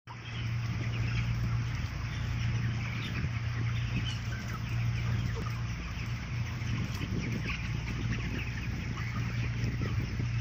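A large flock of chickens in a poultry house, many birds calling and clucking at once as short overlapping sounds. Under them runs a steady low machine hum.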